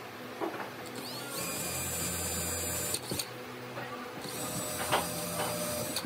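Cordless drill boring into a pine board in two runs of about a second and a half each, its motor whine rising quickly as it spins up, with a few light knocks of handling between the runs.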